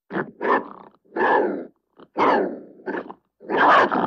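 Old English Sheepdog snarling in a string of short, rough growls, each under a second long with brief breaks between them.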